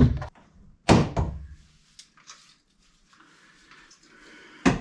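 Wooden knocks and thuds from handling and fitting cabinet boxes: one near the start, a louder one with a short ring about a second in, and two close together near the end.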